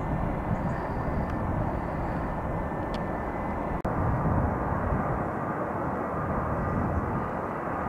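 Aircraft engines running with a steady noise, most of it low and mid-pitched, interrupted by a very brief dropout a little under four seconds in.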